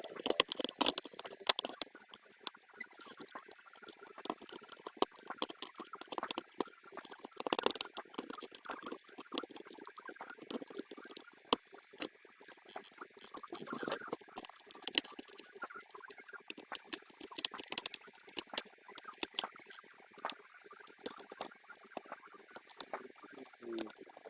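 Irregular light clicks, taps and scratches of hands and small tools working on a Samsung laptop's plastic case and internal parts as it is taken apart.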